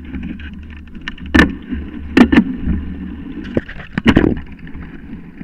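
Mountain bike rolling downhill over a rough dirt trail: a steady low tyre rumble and drivetrain rattle, picked up through the bike by a frame-mounted camera. Several sharp knocks come as the bike hits bumps, the loudest about a second and a half in and just after two seconds.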